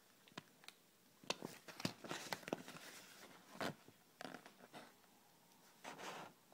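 Handling of Kinder Surprise eggs and their packaging: a run of sharp plastic clicks mixed with short crinkling and rustling, loudest about two to three seconds in, then one more crinkle near the end.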